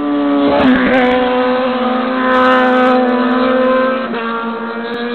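BMW engine running at steady, held revs, wavering slightly about half a second in and easing off a little about four seconds in.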